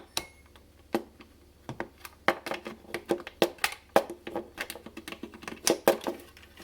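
Hand work on a refrigerator's door magnet and sensor: irregular clicks, taps and knocks of plastic parts and tools being handled, close to the microphone.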